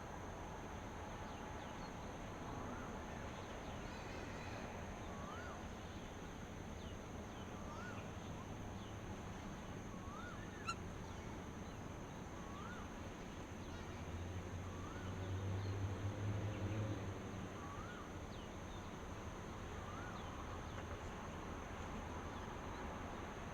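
Dawn outdoor ambience: a bird repeats a short, up-and-down call about every two and a half seconds over a steady high insect drone and soft background hiss. A low rumble swells up and fades away around the middle, and there is a single sharp click.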